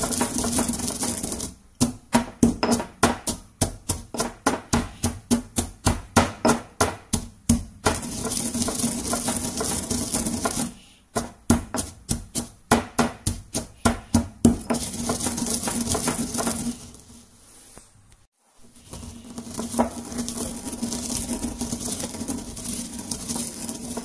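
Stone pestle grinding coffee beans in a stone mortar, crushing broken beans toward powder. Stretches of steady gritty grinding as the pestle is pushed and rotated alternate with two runs of quick pounding strikes, about three a second. There is a short pause about three-quarters of the way through.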